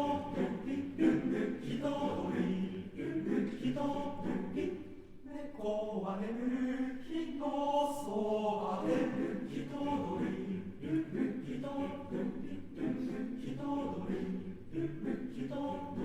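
Unaccompanied men's choir singing a cappella, several voice parts moving together in sustained, shifting chords.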